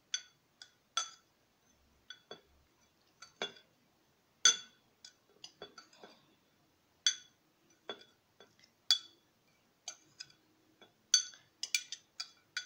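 Metal spoon stirring dry seasoning mix inside a glass jar, clinking against the glass at irregular intervals, with the loudest clinks about four seconds in and near the end.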